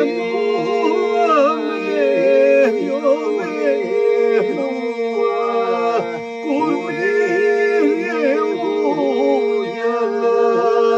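A man singing a slow, heavily ornamented melody, his voice bending and turning on the notes, over a steady held drone beneath.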